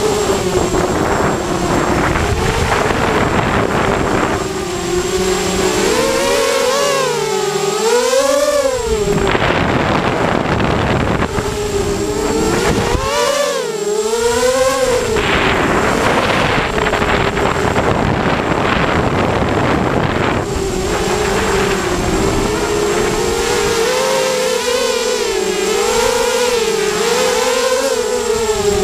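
Hexacopter's brushless motors and propellers whining in flight, heard close up from the frame, the pitch swinging up and down again and again as the throttle changes, over a steady rushing hiss.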